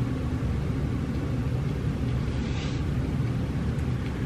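A steady low rumble with a faint hum underneath, unchanging throughout.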